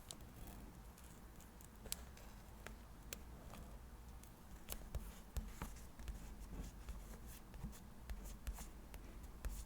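Faint scratching of a pen on paper, with scattered light taps and clicks.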